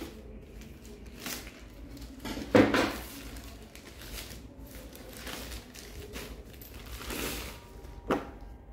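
Plastic courier pouch being slit open and pulled apart by hand: a string of short crinkling, tearing rustles, the loudest about two and a half seconds in, with a sharper rustle near the end as a stack of paper booklets is pulled out.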